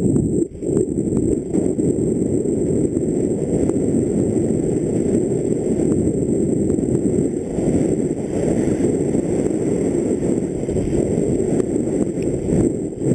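Wind buffeting a helmet-mounted camera's microphone at speed, over the rumble of mountain-bike tyres rolling down a loose gravel trail, with a few small clicks of stones and bike rattle.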